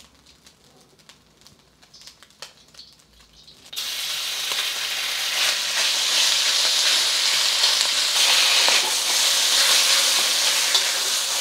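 Hot oil in a wok, near quiet with a few faint ticks, then about a third of the way in a loud sizzle starts suddenly as the second batch of sliced beef flank steak goes into the oil. The sizzle then keeps frying steadily as the beef is stirred.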